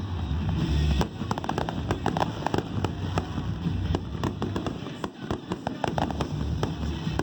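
Fireworks going off in quick succession: a dense run of sharp cracks and pops over low booms.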